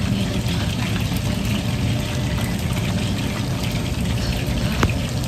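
Battered chicken pieces deep-frying in hot oil in a shallow pan: a steady, dense sizzle full of fine crackles over a low rumble, with one sharp tap near the end.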